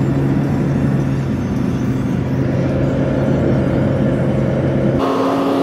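Steady in-cabin drone of a car driving at road speed: a low engine hum over tyre and road rumble. About five seconds in the noise changes abruptly.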